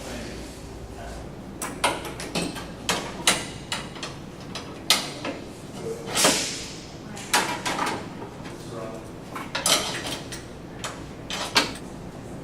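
Irregular knocks and clacks of hardware and tools being handled while an espresso machine is installed, with one longer scraping slide about six seconds in.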